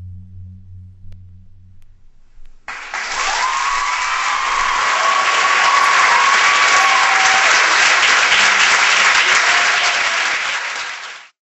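A low note of the music fades out. About three seconds in, an audience bursts into applause and cheering with a few whoops, and the sound is cut off abruptly near the end.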